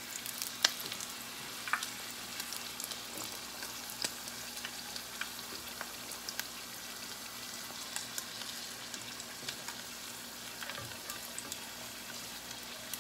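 Pastelitos deep-frying in hot oil: a steady sizzle with scattered crackles, a few sharper ones in the first two seconds.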